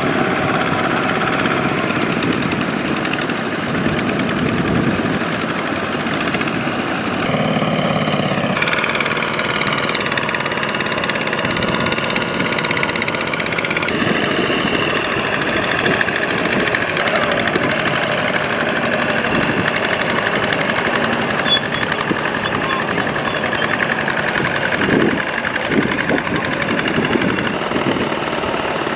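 Tractor engines running hard, the engine note shifting several times as they work.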